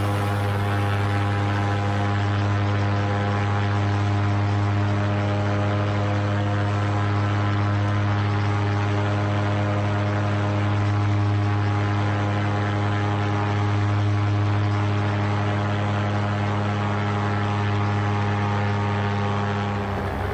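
Paramotor engine and propeller running steadily in flight, an even hum that holds its pitch.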